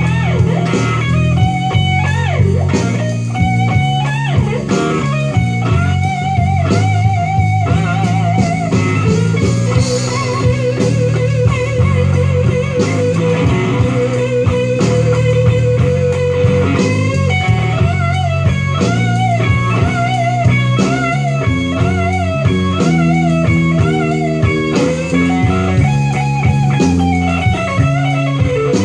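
Fender Stratocaster electric guitar playing a slow blues lead: string bends and long held notes with wide vibrato, over a steady low accompaniment.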